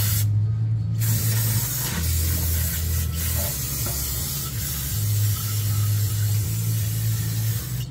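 Aerosol brake cleaner hissing out through its thin extension straw onto oily transmission harness connectors, washing the oil off them. A short burst is followed by a break of under a second, then an almost unbroken long spray. A steady low hum runs underneath.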